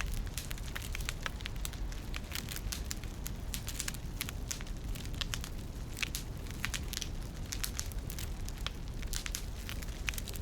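A fire crackling, with frequent irregular sharp pops and snaps over a steady low rumble.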